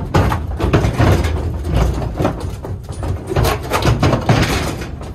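Heifers' hooves clattering and thudding irregularly on a livestock trailer's floor and ramp as the young cattle step out of the trailer.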